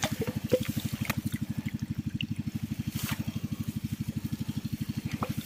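Small single-cylinder engine idling with a rapid, even chug. Faint drips and clicks of water sound over it.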